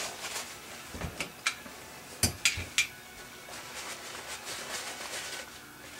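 Steel parts of a field-stripped 1911 pistol handled and set down on a bench mat: a few light metal clicks and knocks, the sharpest three in quick succession near the middle, followed by soft rubbing of a cleaning cloth.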